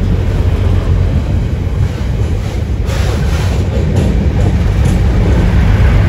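Class 56 diesel locomotive's Ruston-Paxman 16-cylinder engine running with a steady low drone as the rail head treatment train moves, with a few sharp clanks about halfway through.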